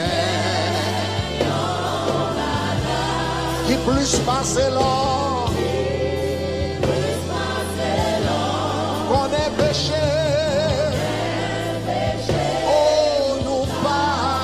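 Haitian Creole gospel worship song: a lead male singer with a wide vibrato and a choir singing together over keyboard and a bass line that moves in slow steps.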